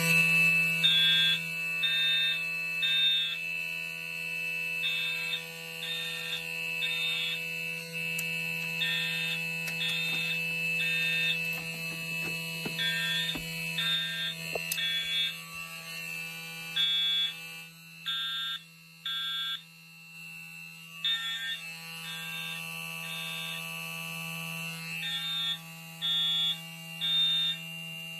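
Fire alarm system in general alarm: a steady buzzing horn sounds continuously while other horns beep in the temporal-three evacuation pattern over it, three short beeps and a pause, repeating.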